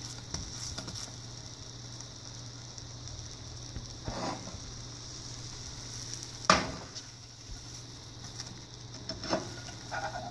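A slice of egg-free French toast steadily sizzling as it fries in vegan butter in a ceramic nonstick pan. A few short knocks break the sizzle, the sharpest about six and a half seconds in.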